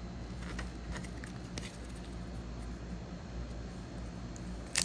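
Steady low background hum with a few faint soft ticks of trading cards being handled, and a sharper click near the end.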